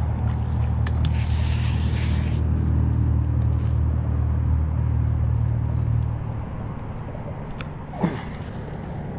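An engine idling with a steady low rumble that drops away about six seconds in. A brief sharp sound comes near the end.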